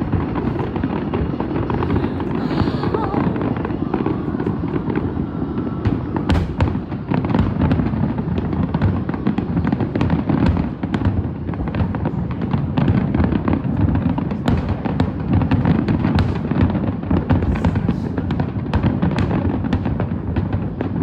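Aerial fireworks display: a continuous rumble of shell bursts, broken by many sharp bangs and crackles.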